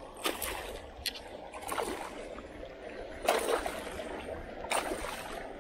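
A small hooked fish splashing at the surface in shallow water against rocks as it is reeled in, several short splashes about a second or so apart over gently moving water.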